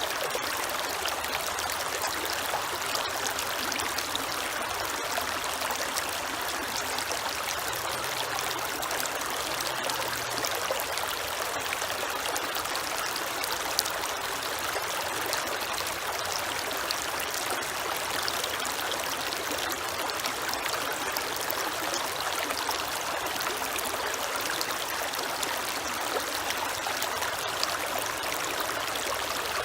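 A creek flowing steadily: an even rush of water with fine, rapid splashing and trickling.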